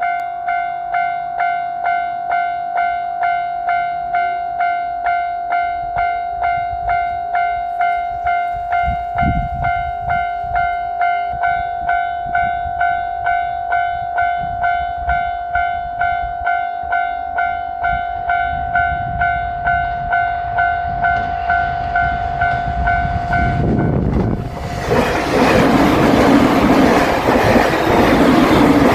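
A Japanese level crossing's electronic warning bell dings steadily, a little under two strokes a second, while the rumble of an approaching train slowly grows beneath it. About 24 seconds in, a JR Shikoku 8000 series electric limited express rushes over the crossing with a loud roar and rail clatter that swamp the bell.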